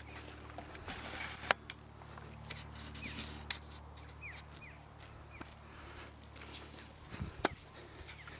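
Quiet outdoor field ambience: footsteps through grass, a few sharp clicks and faint short bird chirps.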